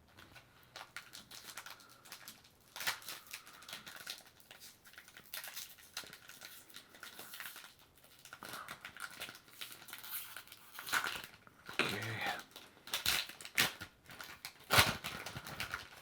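Foil booster-pack wrapper crinkling and trading cards being handled and laid into piles, in irregular rustles and light clicks.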